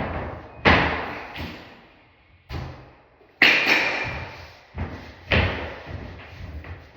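A series of sharp knocks and thuds, about six in seven seconds and irregularly spaced, each with a short echoing tail; the loudest comes about three and a half seconds in. They are the sounds of a wooden wardrobe cabinet door and a mirror panel being handled and set in place.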